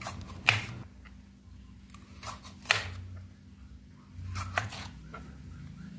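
Kitchen knife slicing a red bell pepper on a plastic cutting board: a few irregular knocks as the blade cuts through and hits the board.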